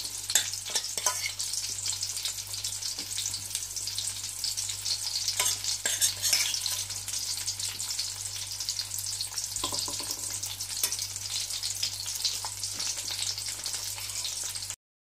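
Batter-coated mushrooms sizzling steadily in hot oil in a nonstick wok over a low flame, with the taps and scrapes of a wooden spatula stirring them now and then. The sound cuts off suddenly just before the end.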